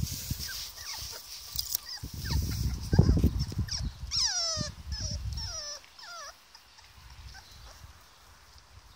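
Young puppies, 24 days old, whimpering: a few short, thin whines that fall in pitch, about four seconds in. Low rustling and bumping noise runs through the first few seconds.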